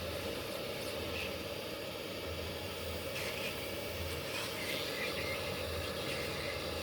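Steady low mechanical hum with a few faint, brief handling sounds during board repair work.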